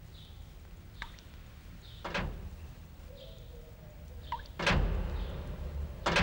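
Three heavy, echoing thuds: a softer one about two seconds in, then two loud ones near the end, each leaving a low rumble that hangs on. A faint click comes about a second in.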